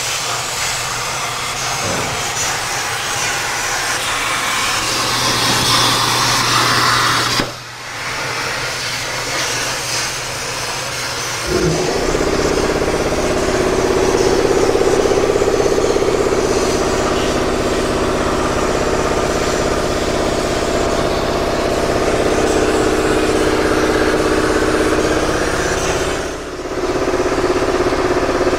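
Vulcan computerized plasma cutting table cutting sheet metal: the torch arc gives a steady hiss. Partway through, a steady machine hum with several tones joins it. Both dip briefly twice.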